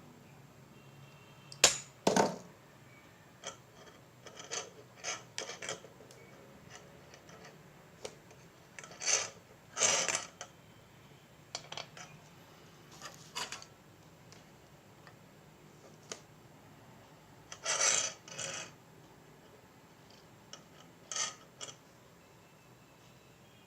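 Hand work on a small circuit board while a wire is soldered on: scattered clicks, taps and brief rubbing or scraping from tools, wire and board being handled. The loudest are two sharp knocks about two seconds in.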